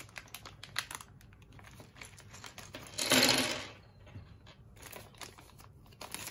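A thin plastic bag crinkling as it is handled and shaken out, with light clicks of small plastic brick figures dropping onto a tabletop. The rustle is loudest for about half a second, roughly three seconds in.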